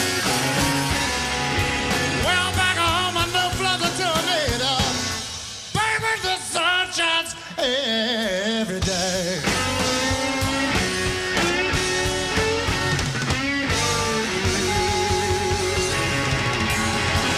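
Live slow electric blues: a lead electric guitar plays bent, wavering notes over bass and drums. About five seconds in the band briefly drops out, then comes back in short, choppy stop-time hits before the full band resumes.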